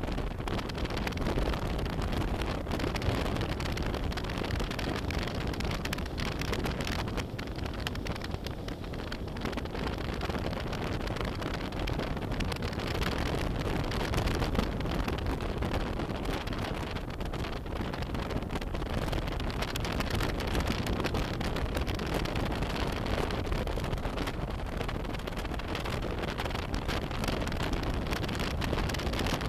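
Steady wind rush buffeting the microphone of a moving BMW F800GS motorcycle, with the bike's running noise underneath.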